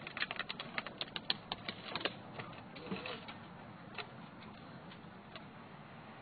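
Irregular rapid clicks and taps from a metal TV antenna mast and its rope and boards shifting as it is hauled upright. They are dense for about two seconds, then come only now and then.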